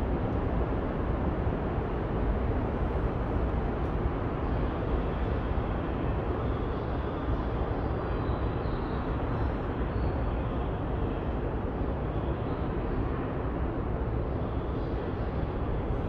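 Steady railway station platform ambience: a continuous low rumble of background noise that neither rises nor falls.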